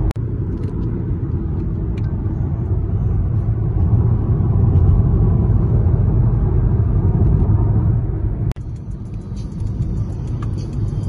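Steady low rumble of a car driving at road speed, heard from inside the cabin: tyre and engine noise. It cuts out abruptly for an instant twice, just after the start and about eight and a half seconds in.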